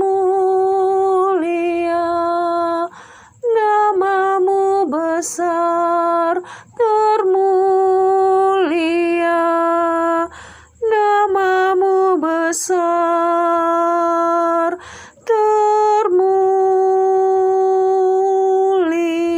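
A woman singing solo a cappella, without accompaniment. She holds long notes of a few seconds each, some sliding in pitch, with short breaks for breath between phrases.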